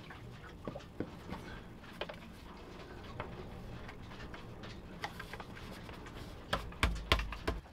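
Black plastic air filter housing being handled and fitted against a Volvo Penta D2-40F diesel's air intake: scattered light clicks and taps, then a cluster of louder knocks and thuds near the end.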